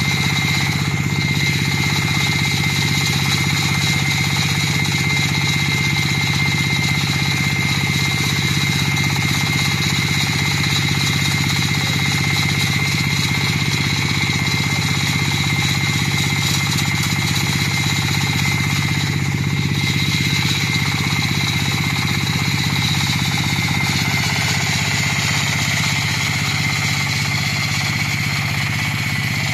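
The 38 HP diesel engine of a tracked floor saw runs steadily under load while the saw blade cuts through wet concrete, with a steady high whine over the engine's low running. The level dips slightly near the end.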